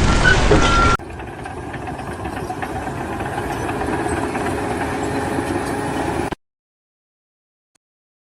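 A loud, noisy sound for about the first second, then an abrupt change to an engine running steadily and growing slightly louder. The sound cuts off suddenly about six seconds in, leaving silence.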